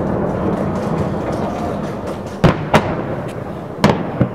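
Fireworks bursting: four sharp bangs in two close pairs in the second half, over a steady din of distant bangs and faint crackling.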